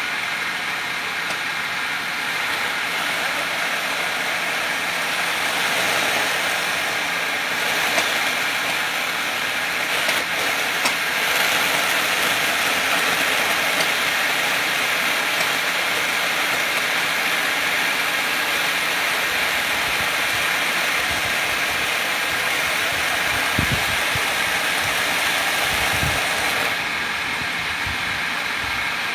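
Electric-motor well-drilling rig running steadily: a constant mechanical hum with a hiss over it. It grows a little louder about seven seconds in and eases back near the end, with a few low knocks late on.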